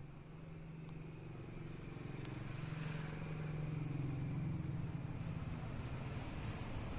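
Low, steady mechanical hum that grows gradually louder, with a broad rushing noise building toward the middle.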